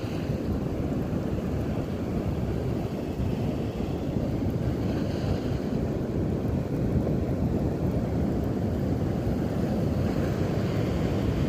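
Wind buffeting the microphone over the steady wash of surf, a continuous low rushing noise with no breaks.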